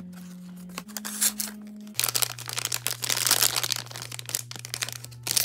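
Packaging being crinkled and torn open, a dense irregular crackling that starts about two seconds in, over background music holding low sustained notes.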